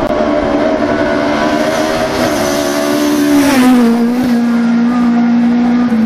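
Ford Escort Mk2 rally car at high revs on a gravel stage, driving past. The engine note climbs, then drops sharply as the car passes about halfway through, where a rush of tyres and flung gravel is loudest. The note then holds at a lower pitch.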